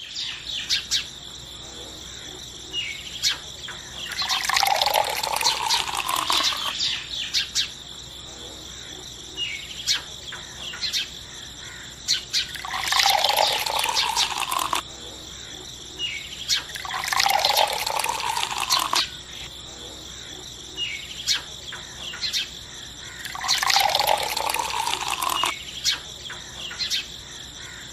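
Wet cement slurry being poured from a small steel bowl into a miniature slab mould, in four pours of about two seconds each. Small clicks and drips come between the pours.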